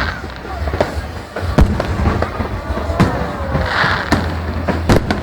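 Fireworks bursting in a rapid series of sharp bangs over a continuous low rumble, with a patch of crackling about four seconds in.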